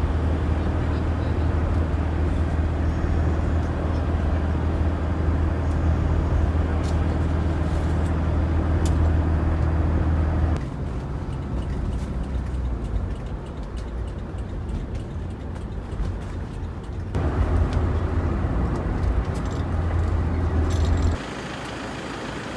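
Boat engine running at a steady low drone, with rushing noise above it. The sound changes abruptly about halfway through, comes back strongly later, and drops away again near the end.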